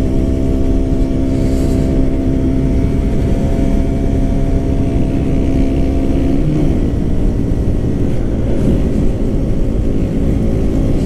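KTM 125 Duke's single-cylinder four-stroke engine on its stock exhaust, running under way at steady revs, mixed with wind rushing over the microphone. About two-thirds through, the engine note dips briefly in pitch and then runs less evenly.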